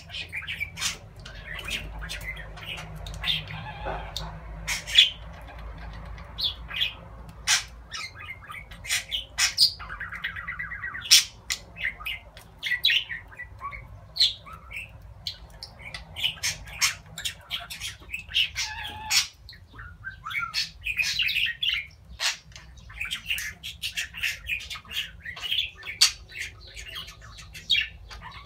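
Pet budgerigars warbling and chattering: a busy, uneven stream of short sharp chirps, clicks and squawks.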